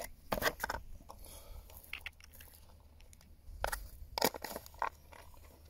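Handling noise: a few scattered short clicks and crackles, with quiet gaps between them.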